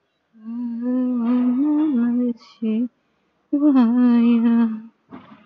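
A woman's voice chanting devotional verses in long held, sung notes without clear words: one note of about two seconds, a short one, then another of about a second and a half.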